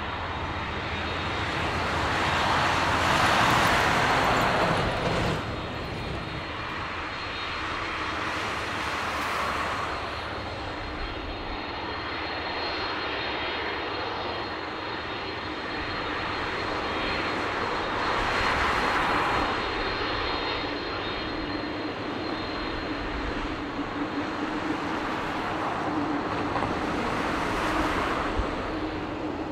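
Jet engines of a widebody cargo airliner running at takeoff power. It is a continuous rumble and roar that swells and fades several times, with a faint high whine over it.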